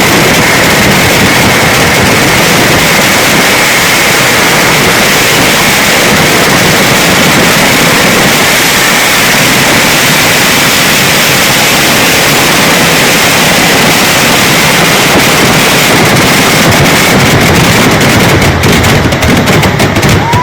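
Vedikkettu fireworks: a rapid, continuous barrage of firecracker blasts, so dense that they merge into one very loud, unbroken din. Near the end the barrage thins and separate bangs can be picked out.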